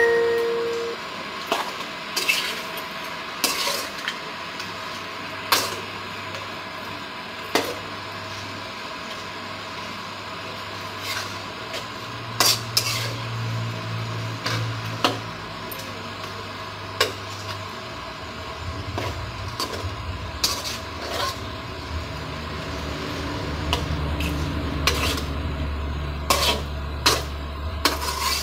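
Metal spatula scraping and knocking against a metal kadai as chicken pieces are stirred and fried, with a steady sizzle underneath. The knocks come irregularly, every second or two, and a low hum joins about two-thirds of the way in.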